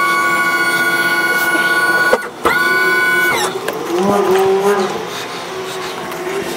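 Motorised lift raising a boat's engine-room deck hatch: a steady electric whine that stops about two seconds in, runs again briefly and winds down with a falling pitch about three and a half seconds in.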